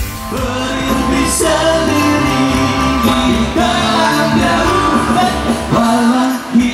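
A song played by a band: a singer over guitar and a bass line.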